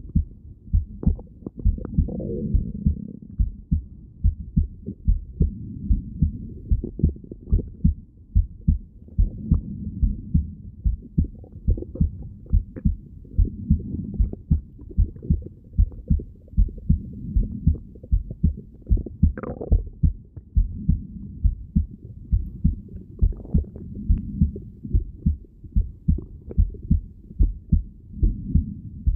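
Heartbeat heard through a stethoscope: a steady, regular train of low thumps, with a soft swell about every four seconds and a couple of brief higher squeaks.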